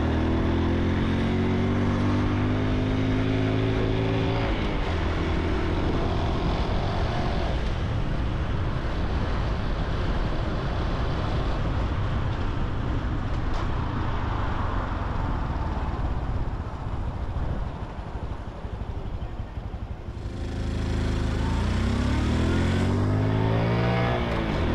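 Honda Super Cub C125's four-stroke single-cylinder engine and exhaust, heard from the bike. It rises in pitch as the bike accelerates at the start, runs steadily with rushing wind for a long stretch, drops to a quieter low note for a few seconds, then revs up and rises in pitch again near the end as it pulls away.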